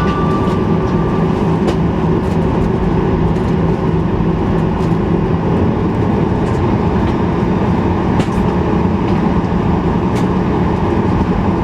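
Steady, loud cabin rumble of a Boeing 737-800 on the ground, its CFM56 engines and airframe running with a low hum, with a few faint brief knocks.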